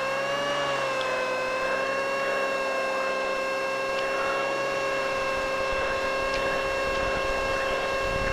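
Mooney 231's engine and propeller running at high power, heard inside the cabin: a steady drone whose pitch rises slightly early on and then holds. A low rumble builds in the second half.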